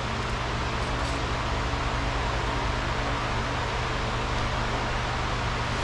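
Steady machine hum with an even hiss, like a fan or motor running, and a couple of faint ticks about a second in.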